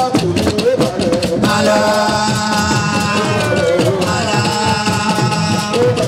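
Music with a singing voice over a steady percussion rhythm; a held chord of several sustained notes comes in about a second and a half in.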